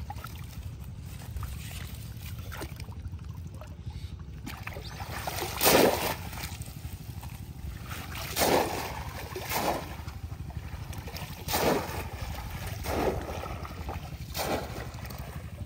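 Pond water splashing as a man wades and works a bamboo polo fish trap in the shallows. There are six loud splashes, one every one to two seconds, starting about five seconds in, over a low steady rumble.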